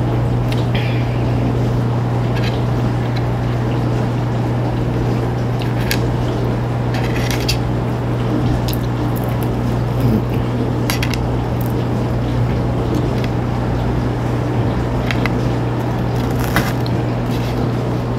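Tap water running steadily into a kitchen sink as dishes are washed by hand, with a steady low hum underneath and scattered short clinks of dishes.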